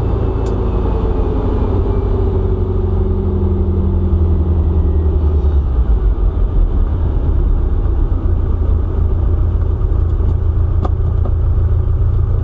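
Air-cooled 1900 cc VW flat-four engine and road rumble heard from inside a 1973 Super Beetle on the move; the engine note falls over the first five seconds as the revs drop, then settles into a steady rumble.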